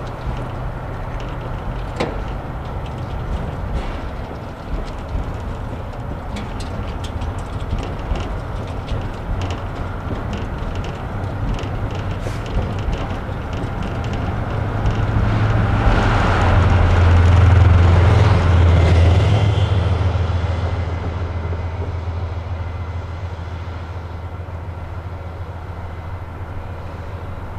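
Diesel train running past. A steady low engine drone and a run of sharp clicks are followed by a swell that grows loudest about two-thirds of the way through and then fades.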